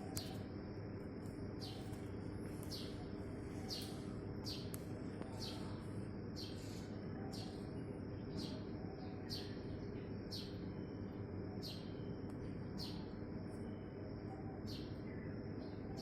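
Small birds chirping: short, high chirps repeating about once or twice a second over a steady low background hum.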